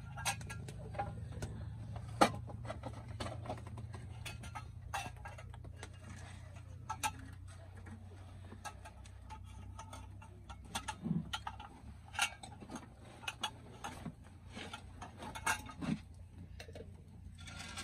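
Enamel mugs and metal cooking pots being handled, giving scattered light clicks and knocks, with one sharper knock about two seconds in.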